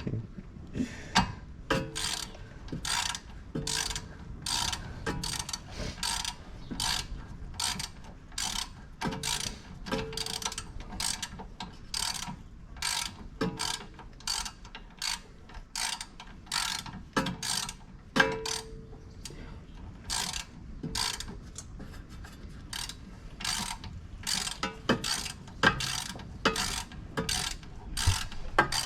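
Hand ratchet wrench clicking in steady strokes, about two a second, as a bolt is turned on the car's rear brake.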